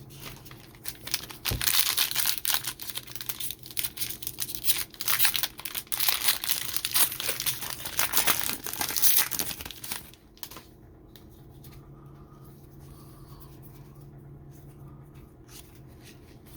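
Foil trading-card pack wrapper being torn open and crinkled by hand, a busy crackling that stops about ten seconds in.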